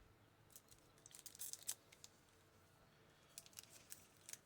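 Faint rustling and crinkling of baseball card packs and cards being handled, in two short spells of small crisp crackles, about a second in and again near the end.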